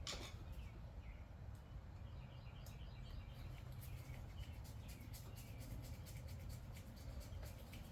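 Faint scattered clicks and ticks of small carburetor parts being handled as the carburetor top cover goes on and a screw is started, more frequent in the second half, over a low steady hum. A bird chirps briefly in the background a few seconds in.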